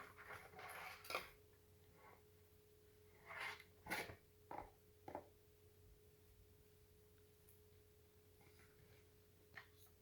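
Faint rustling and a few light clicks and knocks of packaging and lock parts being handled, over a faint steady hum.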